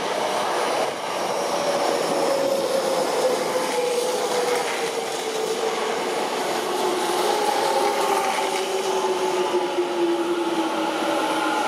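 Tokyo Metro 10000 series electric train braking as it pulls into a station: the VVVF-inverter traction motor whine falls steadily in pitch as it slows, over steady wheel-on-rail running noise.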